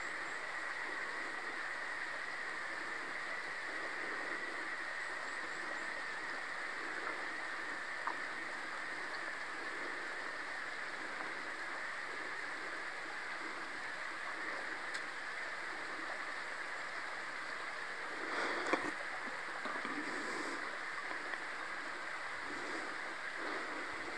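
Steady rushing of a stream running through the whole stretch, with a brief rustle or knock about three-quarters of the way through.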